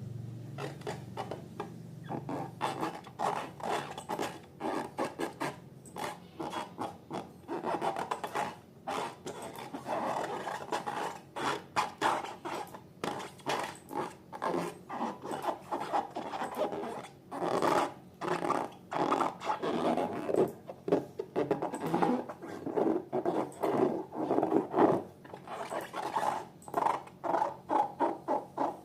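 Slime being mixed and worked by hand: a fast, uneven run of short wet squelches and sticky clicks that grows busier after the first several seconds.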